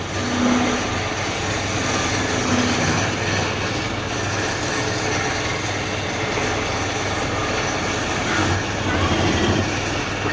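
A workshop machine running steadily: a dense, even noise over a low hum.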